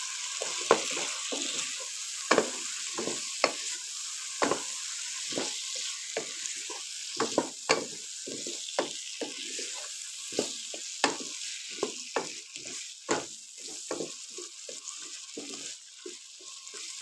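Potato chunks frying in a spiced tomato masala with a steady sizzle, while a wooden spatula stirs them, knocking and scraping against the kadai again and again at an uneven pace.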